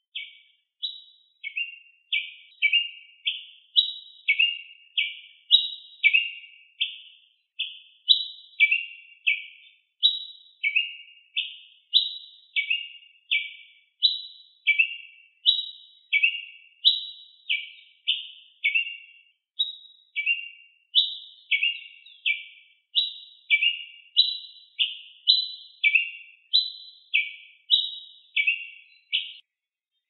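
Ruby-crowned tanager (tiê-preto) singing: a steady series of short, clear notes, repeated more than once a second, each stepping down in pitch.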